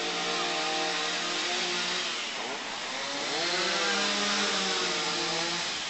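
An engine running, its pitch holding steady, then dropping and rising again about halfway through, over a steady hiss.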